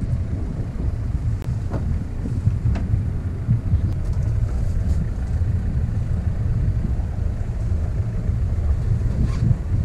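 Wind buffeting the microphone on a boat at sea, a steady uneven low rumble with a few faint clicks.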